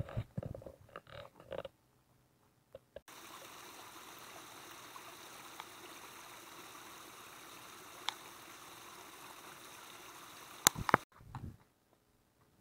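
A stream running steadily, cutting in abruptly about three seconds in and stopping just as abruptly about eleven seconds in. A few loud clicks come just before it stops, and the opening seconds hold scattered soft knocks.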